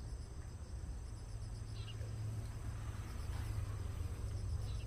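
Insects, crickets among them, trilling steadily in a high-pitched drone, over a low steady rumble.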